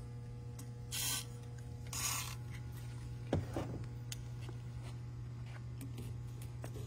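Two short hisses of WD-40 aerosol spray, about a second apart, over a steady shop hum, followed about three seconds in by a single sharp metallic knock and a few light ticks as the honing tool is handled at the cylinder.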